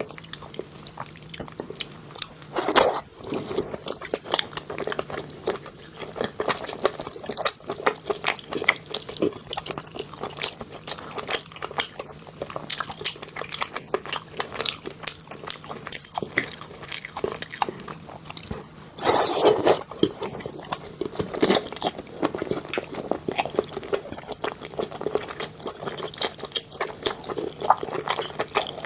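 Close-miked chewing and biting, with many small wet mouth clicks and louder crunchy bites about three seconds in and again around twenty seconds in.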